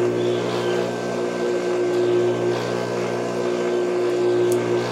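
Juki industrial sewing machine's motor humming steadily at a fixed pitch, with one sharp click near the end.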